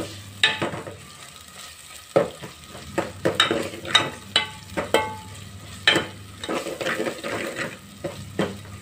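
Steel ladle stirring and scraping an onion, tomato and green chilli masala frying in oil in a metal pot, with repeated scraping strokes over a steady sizzle. The freshly added ginger-garlic paste is being fried until its raw smell goes.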